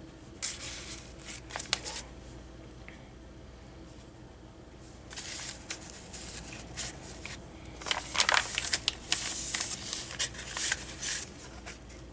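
Paper rustling as the pages, cards and tags of a handmade paper journal are handled and turned, in several scattered bursts, the busiest in the last few seconds.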